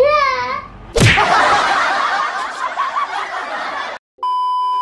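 A short child's laugh, then an edited intro sound effect: a sudden bang about a second in, followed by about three seconds of dense static-like noise that cuts off abruptly. After a brief gap, a steady test-pattern beep sounds, the tone that goes with TV colour bars.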